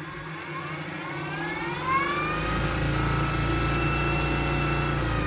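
Ashford e-Spinner 3 electric spinning wheel starting up: its motor and spinning flyer give a whine that rises in pitch over about two seconds as the speed knob is turned up, then holds a steady speed.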